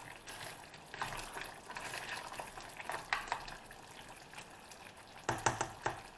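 A spoon stirring a thick turkey stew in a frying pan, scraping through the simmering sauce. A few louder knocks come near the end.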